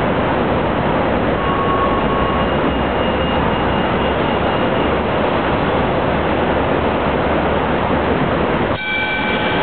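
Hong Kong Light Rail vehicle running slowly through a station, a steady loud rolling noise. Near the end the noise dips briefly, then a whine of several steady tones sounds together.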